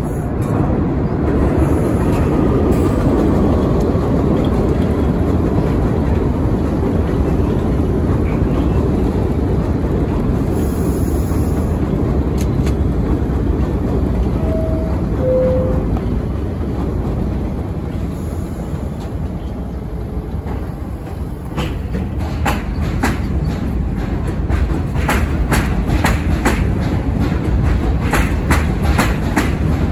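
New York City Subway R62A train rumbling as it comes into the station and stands, with a two-note door chime stepping down in pitch about halfway through. About two-thirds in it pulls out, its wheels clacking over the rail joints faster and faster as it gathers speed.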